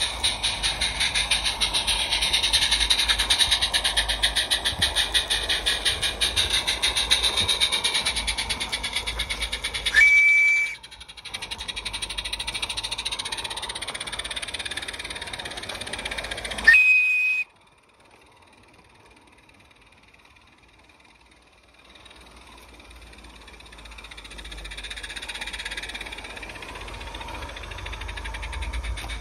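Live-steam garden-railway locomotive running with fast, even exhaust beats, and two short whistle blasts about ten and seventeen seconds in. After the second whistle the sound drops sharply, then a quieter steady running sound builds again toward the end.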